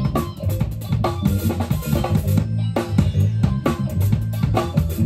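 Live band playing, a drum kit keeping a steady beat over sustained bass notes.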